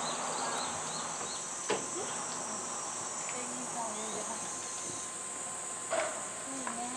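Cicadas buzzing in a steady, high, continuous drone, with a short knock about two seconds in and another near the end.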